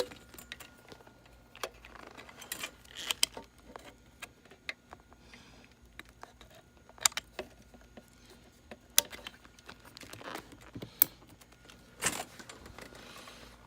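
Scattered clicks and light rattles of audio gear being handled, such as switches, knobs and cables, over a faint steady electrical hum.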